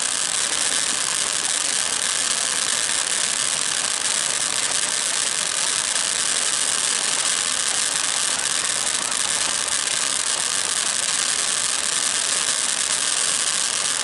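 Ground fountain firework spraying sparks with a steady, even hiss.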